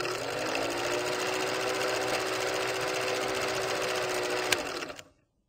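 Film projector sound effect: a rapid, even mechanical clatter over a motor hum that rises to a steady pitch at the start, with one sharp click near the end before it cuts off suddenly about five seconds in.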